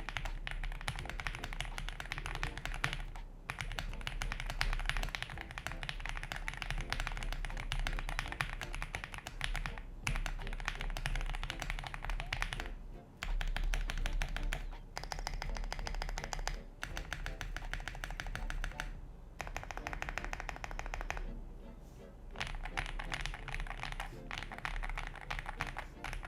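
Fast typing on a Meletrix Zoom65 mechanical keyboard with lubed JWK linear switches and doubleshot PBT keycaps: a dense, steady run of key strokes broken by a few short pauses.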